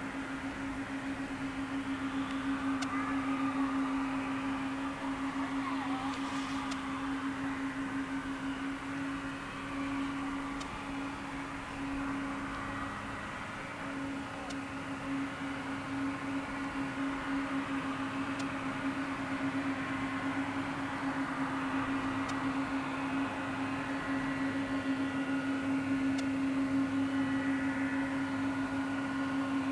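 Boeing 777-200 airliner's twin jet engines idling as it taxis slowly, a steady hum with one unbroken low drone under a softer hiss.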